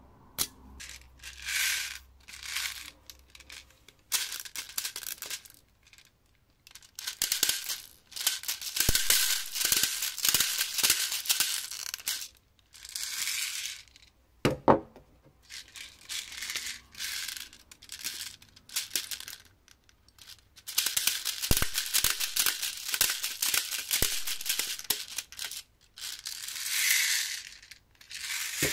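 Gas-blowback pistol magazines being charged with airsoft gas from a can pressed onto the fill valve: repeated bursts of hissing, each lasting up to about two seconds. Sharp clicks from the magazines being handled come between the bursts, with one loud knock about halfway through.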